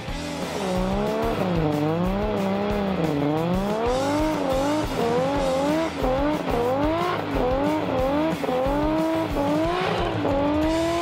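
A car's engine revving up and down during a burnout, its note rising and falling over and over, over the hiss of spinning rear tyres. Near the end the revs hold steadier and climb slightly.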